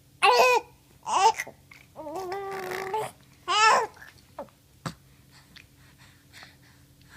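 A young child babbling in a high voice, four short bursts of story-like chatter without clear words, then a single sharp click about five seconds in.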